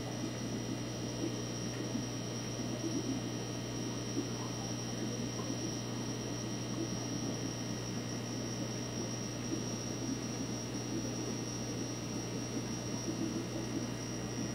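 Steady electrical hum from running aquarium equipment, with a low, fluttering wash of moving water underneath.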